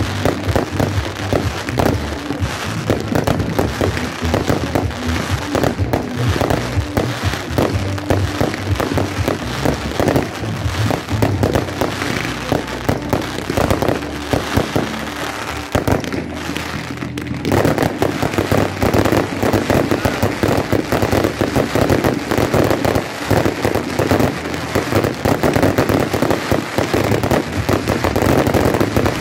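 Fireworks going off in a dense, continuous barrage of bangs and crackles, growing denser and louder a little past halfway through.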